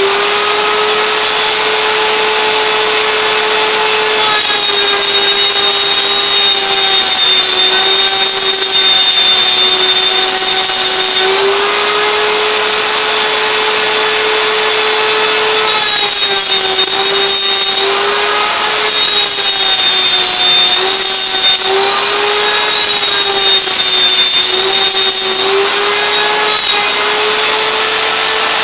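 CNC router's spindle running and cutting a hole in the workpiece: a steady high whine with a cutting hiss, its pitch sagging and recovering several times as the bit takes load.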